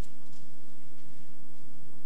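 Steady low hum and hiss of room and recording noise, with faint brief scuffs from the performer's footwork and uniform about a third of a second and a second in.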